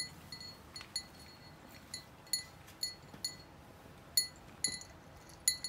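Light metallic clinks, about ten of them at irregular intervals, each with a short bright ring: the small pendant on a cat's collar tapping against the rim of a glass food bowl as she eats kibble.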